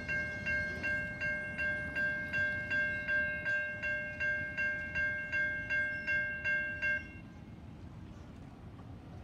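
Railroad grade-crossing bell ringing in a steady, even beat of about two and a half strokes a second as the crossing gates come down. It stops abruptly about seven seconds in, leaving only low background noise.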